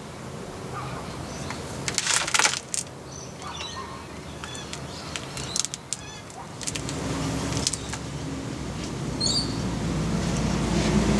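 A motor vehicle's engine approaching, growing steadily louder through the second half. Before it come a few sharp clicks and some short high chirps, like small birds.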